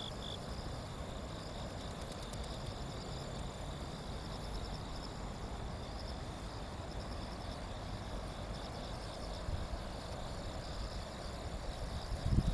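Insects chirping in rapid pulsed trills over a steady rushing background. There are a few low bumps near the end.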